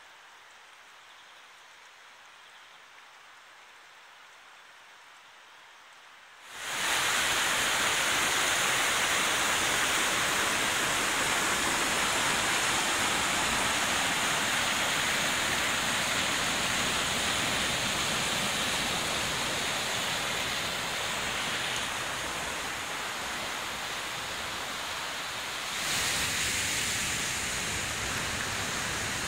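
Faint steady hiss, then about six seconds in the loud, even rush of a fast mountain stream tumbling white over rocks starts abruptly and keeps on, a little louder near the end.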